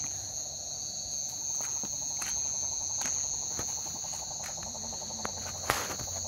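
Steady chorus of crickets, a constant high trill at two pitches. There are a few light knocks and clicks from steps over the river stones, one louder near the end.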